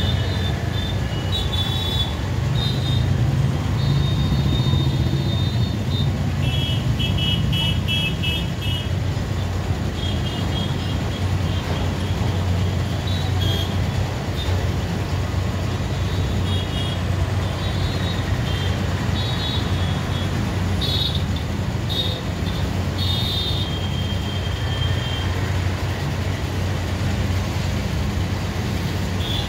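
Road traffic of motorbikes, auto-rickshaws and cars running steadily, with frequent short horn honks throughout. A quick run of repeated beeps comes about seven to nine seconds in.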